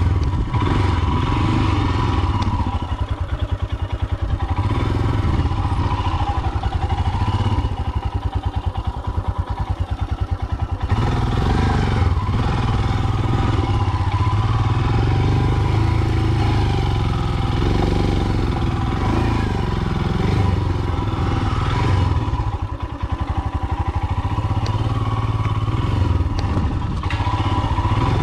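Royal Enfield Himalayan's single-cylinder engine running as the bike is ridden slowly over a rough hillside trail, with the engine note easing off briefly now and then.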